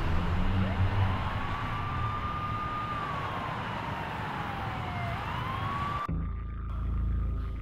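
A siren wailing over a steady hiss of background noise, its pitch rising, holding, sliding down and rising again. About six seconds in, the hiss cuts off and a low droning rumble takes over while the siren carries on faintly.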